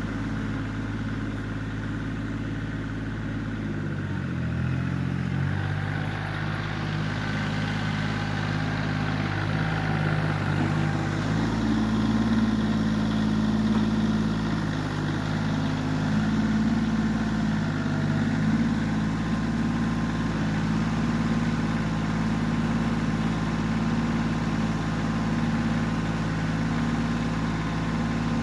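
Kioti CK20S compact tractor's three-cylinder diesel engine running steadily while working the backhoe, its note dipping briefly about four seconds in and then recovering.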